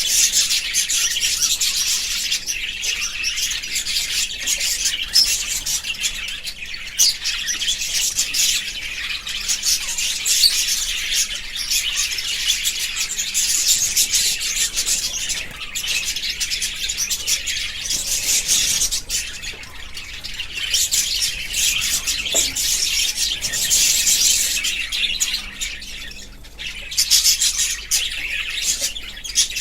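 Budgerigars chirping and chattering in a dense, continuous stream of high twittering, thinning briefly near the end.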